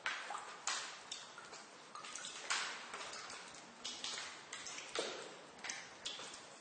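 Water drops falling irregularly in a basement, several a second, some landing as sharp plinks with a short echoing tail.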